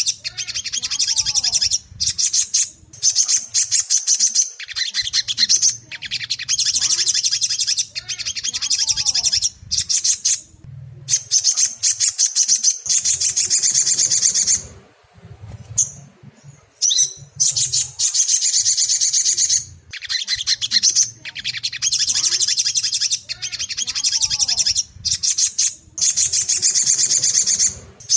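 Sogon, a bird of the sunbird family, singing in fast, high-pitched chattering phrases of a second or two, with short breaks between them and a longer pause about halfway through. This is a lure song played to set off a caged sogon's singing.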